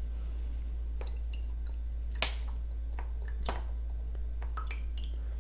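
Lime juice squirted from a plastic squeeze bottle into a small glass: a handful of short squirts and clicks, the loudest about two seconds in, over a steady low hum.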